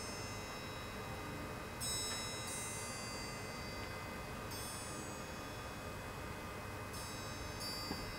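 Soft, high metal chimes in an orchestral passage, struck in small clusters about five times a couple of seconds apart, each ringing and fading away.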